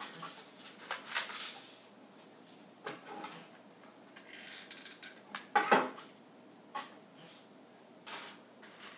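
Hands handling craft materials at a table: scattered rustling and light clicks and clatter as spruce branches are handled and decorations are picked out of a plastic bowl, loudest a little over halfway through.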